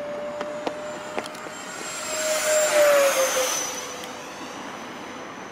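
The 70 mm electric ducted fan of an FMS Yak 130 RC jet at high power, a whine with rushing air. It grows loud as the jet makes a fast pass about two to three seconds in, and the whine's pitch drops as the jet goes by, then fades.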